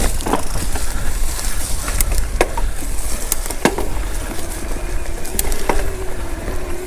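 Electric mountain bike riding down a dirt singletrack: a steady low rumble of wind on the microphone and tyres over the ground, with scattered sharp clicks and knocks from stones and the rattling bike.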